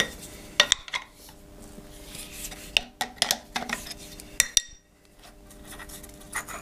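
Steel clamping hardware on a milling machine table being handled: a serrated step block and strap clamp knocking and clinking against each other and the table. There are several sharp metallic clinks in small clusters, each ringing briefly.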